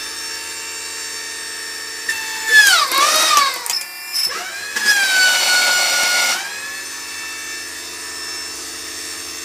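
Electric motor and hydraulic pump of a homemade hydraulic press power pack running with a steady whine. Twice, about two and five seconds in, it grows louder and its pitch sags for a second or so, then recovers, as the pump works under load.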